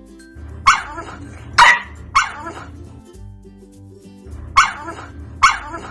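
A dog barking five times, three barks and then two after a pause of about two seconds, over light background music.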